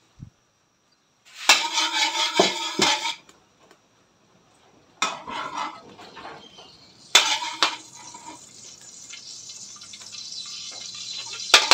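Metal spoon clattering against the pan and a plastic container, then chopped garlic dropped into hot oil in a frying pan, sizzling steadily and growing louder toward the end.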